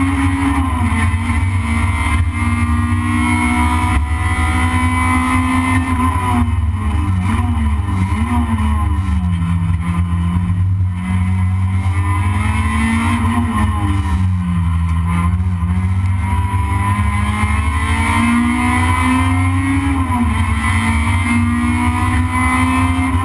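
Toyota Corolla race car's engine heard from inside the cabin under hard driving. Its note drops twice, around a third of the way in and again past the middle, then climbs back up each time, over a heavy, steady low rumble.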